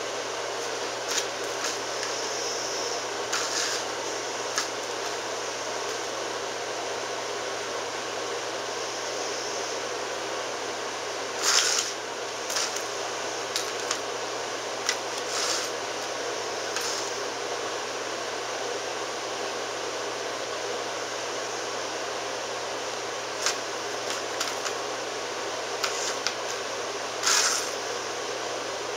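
Small motor of a battery-powered cat toy whirring steadily as it turns a wand under the toy's fabric cover. Short scratchy rustles come now and then, loudest about twelve seconds in and near the end, as the cat paws at the toy.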